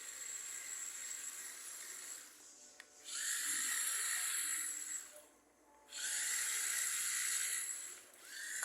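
Small electric motor of an amphibious RC car whining at high speed in two bursts of throttle, each about two seconds long with a short pause between, after a quieter stretch.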